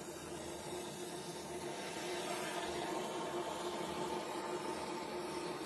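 Donmet 132A micro gas welding torch flame hissing steadily, a little louder from about two seconds in.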